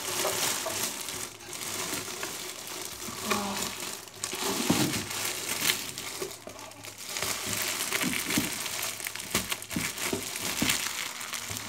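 Clear plastic wrapping crinkling and rustling as a wooden bird nest box is handled and worked out of its bag, with a few light knocks in the second half.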